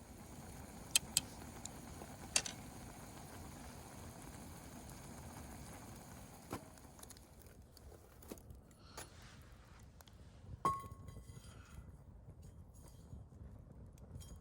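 A few sharp clicks, then near the end a louder clink of hard objects that rings briefly with a metallic tone, over a low steady background.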